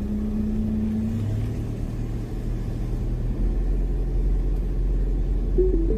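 Car driving slowly along an unpaved forest track: a steady low engine drone with road rumble.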